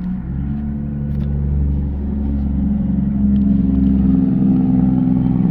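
A motor vehicle's engine running steadily close by, a low hum with a fixed pitch that grows somewhat louder.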